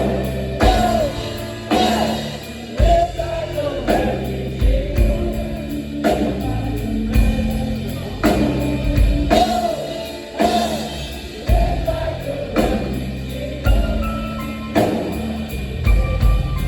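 Live rock band playing at full volume: electric guitars, bass and a drum kit with a strong hit about once a second, with singing over it.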